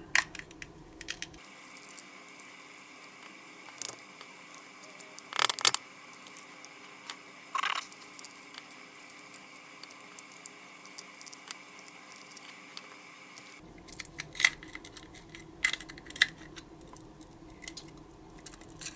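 Scattered small clicks and light metallic taps from a precision screwdriver working tiny screws out of a pocket projector's plastic case, with small screws clinking onto the tabletop and the case and parts being handled.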